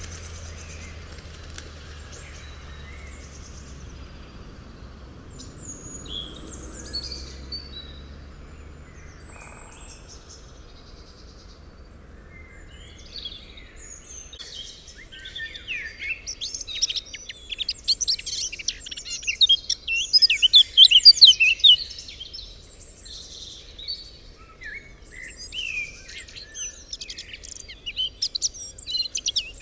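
Small birds chirping and singing, sparse at first and thickening about halfway through into a dense chorus of quick chirps and trills.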